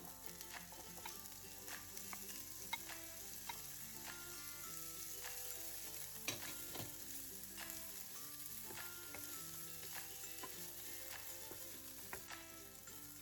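Food sizzling in hot oil in a frying pan while being stirred, with scattered sharp clicks of a utensil striking the pan, the loudest about three seconds in and again between six and seven seconds in.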